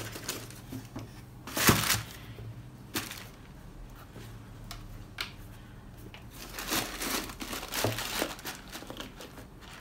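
Tissue paper crinkling and a cardboard shoebox being handled as a pair of white leather Nike Air Force 1 high-tops is packed back into the box. The rustling is irregular, loudest about two seconds in, with a few sharp knocks and more rustling near the end.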